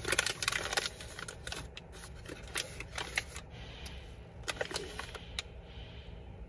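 Coffee bag crinkling as it is opened, handled and folded, with a scoop clicking and scraping as ground coffee is spooned into a stainless-steel pour-over filter; a dense patch of crinkling in the first second, then scattered clicks and short rustles.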